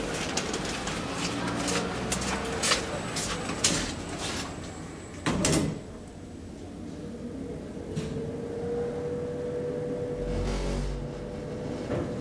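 Elevator car doors sliding shut, with clicking and a heavy knock as they close about five seconds in. From about eight seconds in a steady hum sets in and a low rumble follows as the OTIS hydraulic elevator starts to travel.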